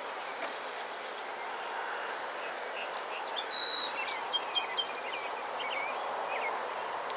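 A songbird singing a quick run of short high chirps and whistled notes, from about two and a half seconds in until about five and a half seconds, over a steady outdoor background hiss.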